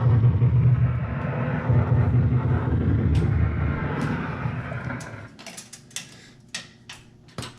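1987 Williams Big Guns pinball machine: a low, rumbling electronic sound effect from its speakers fades out over the first five seconds. It is followed by a handful of sharp mechanical clicks from the machine.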